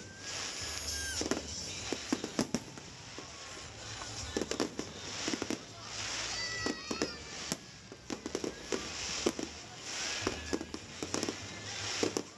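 Fireworks display: repeated bangs and crackling from bursting shells, with a few short whistles gliding in pitch about a second in and again near the middle.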